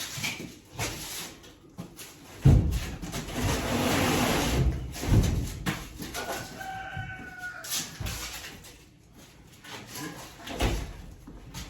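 A rooster crows once, one long held call about six seconds in. Before it comes a few seconds of loud noisy rushing with knocks.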